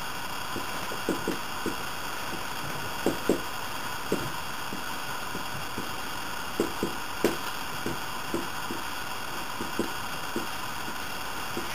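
Dry-erase marker knocking and tapping on a whiteboard propped on a couch as equations are written: soft irregular knocks, bunched in small groups, over a steady recording hiss.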